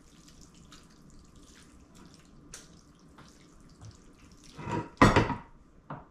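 Mexican chicken spaghetti being scraped with a wooden spoon out of a metal pot into a glass baking dish: faint wet slipping and soft ticks of the noodles and spoon, then a loud scraping clatter about five seconds in and a shorter one just before the end.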